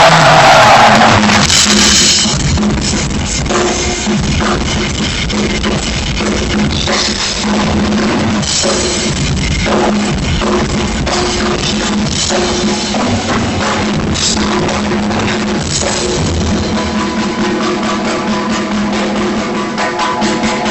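Rock drumming on a drum kit, with rapid kick, snare and cymbal hits over sustained bass and other instrument notes. A loud crash opens the passage.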